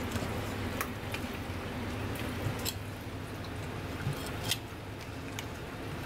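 Wet squishing and a few sharp clicks as a raw stingray's slippery flesh is gripped and pulled apart by hand on a steel counter, over a steady low hum.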